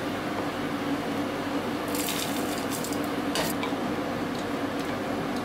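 Bolognese sauce sizzling in a frying pan as it is stirred with a wooden spoon, a steady hiss over a low hum, with a few short scrapes of the spoon about two and three and a half seconds in.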